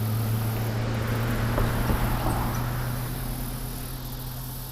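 Road traffic: a vehicle's engine hums steadily and low while the rush of the vehicle going by swells about two seconds in and then slowly fades.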